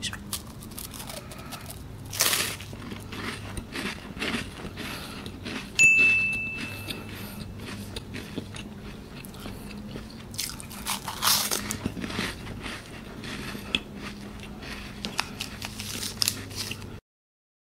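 Close-up crunching bites and chewing of a crispy Nabati cream-filled wafer, a series of crisp cracks with louder bites about 2, 6 and 11 seconds in. It cuts off abruptly near the end.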